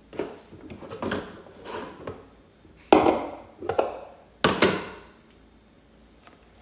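Plastic food-storage containers handled on a kitchen counter: a clear plastic lid lifted off a bowl and the bowl taken out, with a run of knocks and clatters, the two loudest about three and four and a half seconds in.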